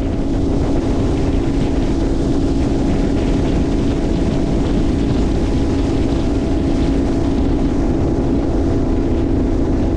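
Boat's outboard motor running steadily at speed: an even engine drone with wind rushing over the microphone.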